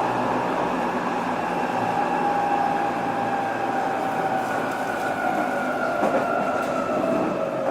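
Tokyo Metro 07 series electric train running: the whine of its VVVF inverter and traction motors slowly falls in pitch over the rumble of wheels on rail, as the train slows.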